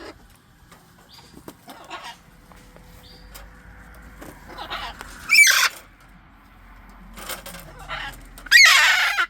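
Macaws squawking: a few softer calls, then two loud, harsh screeches, a short one about five seconds in and a longer one near the end.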